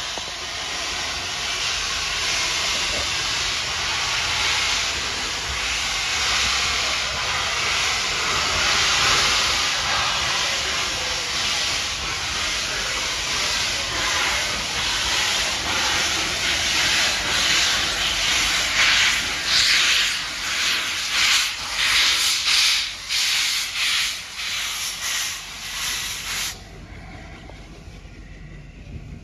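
Steam locomotive Sir Nigel Gresley, an LNER A4 Pacific, hissing loudly as it releases steam. About halfway in, its exhaust beats set in, about two a second, as it works its train. The sound cuts off suddenly near the end.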